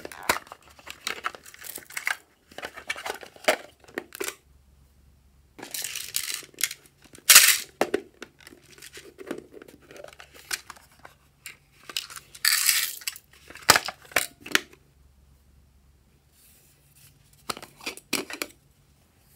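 Hands handling hard plastic containers shaped like a toy refrigerator: small plastic clicks and knocks with short crackly, crinkly bursts, broken by a couple of quiet gaps.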